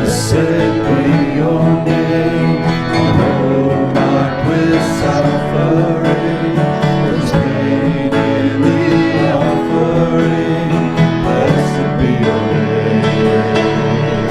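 Music with an acoustic guitar and a singing voice.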